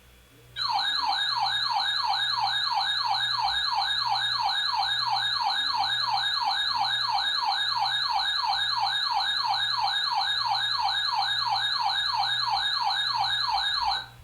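Electronic siren-like alarm tone: rapid repeating falling pitch sweeps, about three a second, that start about half a second in and cut off abruptly near the end.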